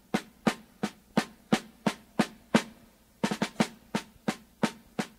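A drum beating a steady rhythm of sharp strokes, about three a second, with a quick flurry of strokes a little past halfway.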